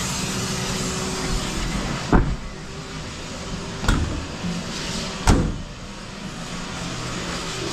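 Steady truck noise with three sharp thumps about a second and a half apart.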